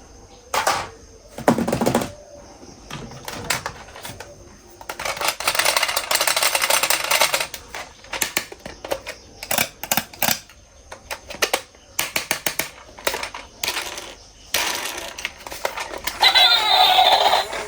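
Hard plastic toy parts clicking and knocking as toys are handled and cleaned, with two longer rushing noises about five seconds in and again near the end. Music with a synthetic sung voice comes in near the end.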